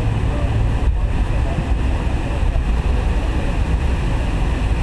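Cabin noise inside a McDonnell Douglas MD-82 taking off: a steady, loud rumble and rush from its rear-mounted Pratt & Whitney JT8D turbofans at takeoff power, with a deep low rumble throughout.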